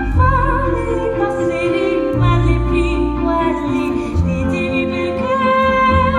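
A high female voice sings long sustained notes with vibrato over a theatre orchestra's strings and low sustained chords.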